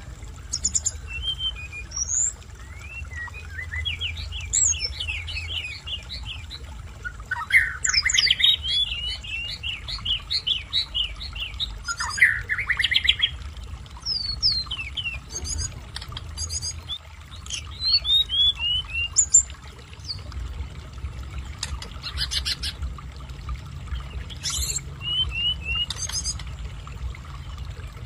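Caged tledekan gunung songbird singing: short phrases of quick, high, rapidly repeated whistled notes, separated by brief pauses, with some sharp short chips between them.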